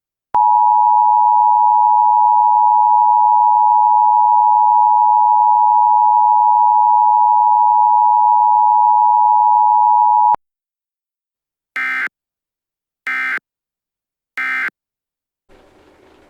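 Emergency Alert System attention signal: a loud, steady two-tone beep held for about ten seconds that cuts off sharply. It is followed by three short bursts of screechy EAS data tones, a little over a second apart.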